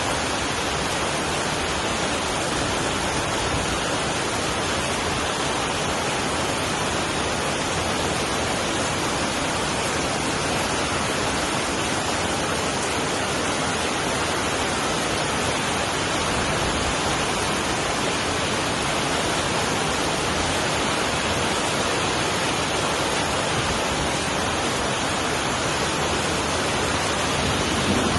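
Steady heavy rain falling, a dense even hiss without distinct drops or thunder.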